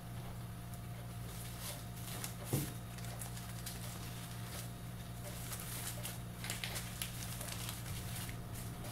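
Faint rustling of parchment paper and twine as a paper-wrapped roll is tied with string, with scattered light taps and one sharper knock about two and a half seconds in. A steady low hum runs underneath.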